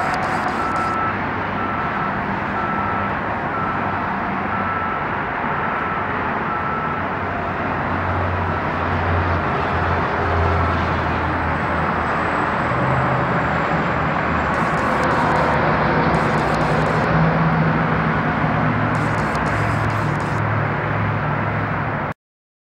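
Steady traffic noise from a multi-lane highway below a high balcony, cars and trucks running past with a shifting low engine hum. A faint beep repeats about twice a second through the first several seconds, and the sound cuts off suddenly near the end.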